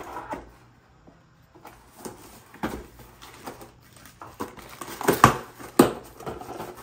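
Cardboard shipping box being opened and handled: scattered rustles and scrapes, with two sharp knocks or tears about half a second apart past the middle.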